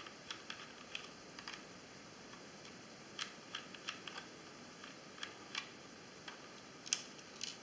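Small screwdriver working the tiny side screws out of a mini quadcopter's frame: faint, irregular light clicks and ticks, with a couple of sharper clicks near the end.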